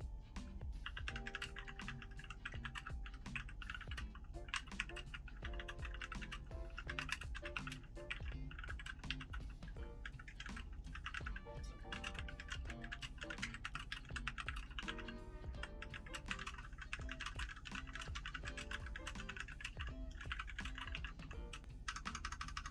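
Steady, fast typing on an Ajazz K680T mechanical keyboard with Huano red linear switches: a dense, continuous run of key clacks. Background music plays underneath.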